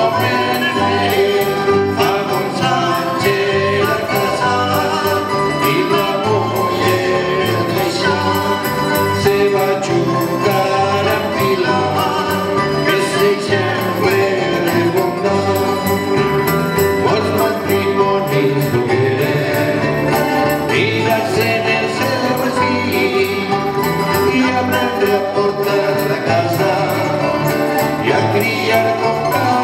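Live plucked-string ensemble of acoustic guitars and smaller mandolin-like instruments, with a bass guitar, playing a song at a steady strumming rhythm.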